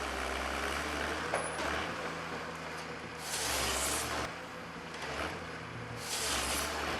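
Heavy diesel machinery running with a steady low drone, with louder rushing, hissing surges about three seconds in and again near the end.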